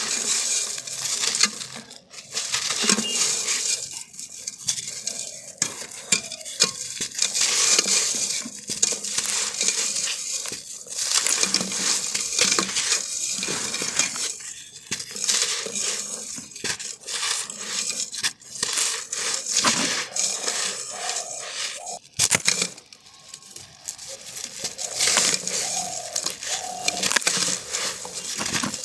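Dry, dusty black sand crumbling and crushed by hand in a clay pot: a dense, gritty crunching made of many fine crackles, with a few brief pauses.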